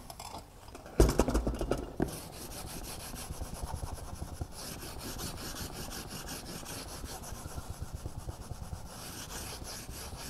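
A small wooden block rubbed briskly back and forth along freshly ironed oak edge banding, pressing it down so the melted glue bonds to the plywood: a steady scraping of many quick strokes. About a second in, a brief louder knock and clatter.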